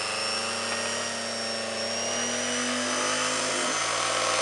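Mini bench pillar drill's electric motor running without load, its chuck spinning, with a high whine that creeps slightly up in pitch. It runs a bit jumpy and jittery, from not having been used in a while.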